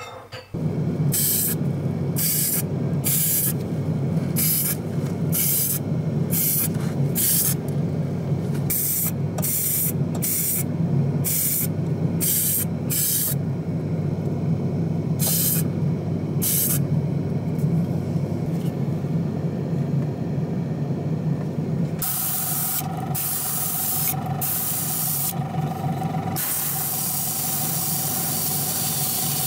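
Small paint spray gun firing short hissing bursts, about a dozen in quick succession, then after a pause longer, held bursts as it lays red automotive base coat on a diecast model body. A steady low hum from the spray booth runs underneath.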